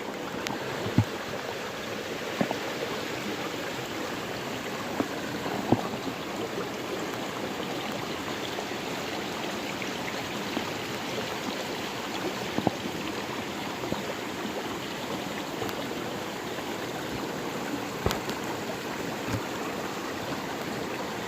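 Stream water flowing steadily, with a few faint clicks and knocks now and then.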